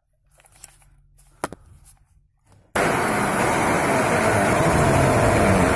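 Corded hammer drill with a metal drill bit, its hammer action switched on, starting suddenly about halfway through and boring into a concrete wall with a loud, steady grinding chatter. Before that there is only a faint hum and a single click.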